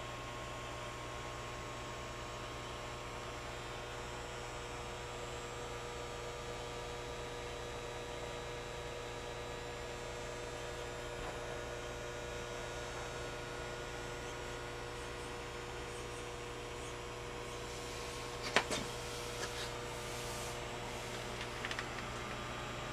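Steady electrical mains hum of indoor grow-room equipment, holding several fixed tones under a faint hiss. A sharp click with a few smaller clicks and rustles comes about three-quarters of the way through, and a few more come near the end.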